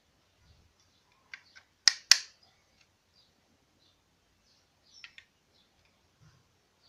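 The opening front door of a 1/32 Bburago Alfa Romeo Giulietta diecast model car being pushed shut: a few light clicks, then two sharp clicks about two seconds in as it snaps closed. A few fainter clicks follow about five seconds in as the model is handled.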